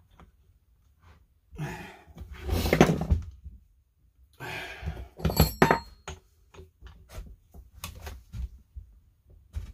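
Thuds, knocks and rattling of metal tools and chainsaw parts being handled on a workbench, with two louder bursts of rattling about two and a half and five and a half seconds in, then a run of lighter knocks and clicks.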